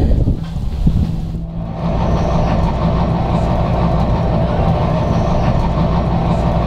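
Steady low engine hum and road rumble heard inside a moving bus, cutting in suddenly about two seconds in.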